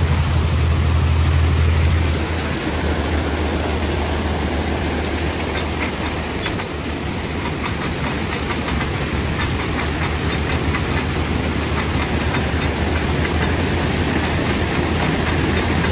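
Water rushing and churning through the open paddles of a wooden canal lock gate as the lock fills. Underneath, a narrowboat engine idles with a steady low hum that drops in level about two seconds in.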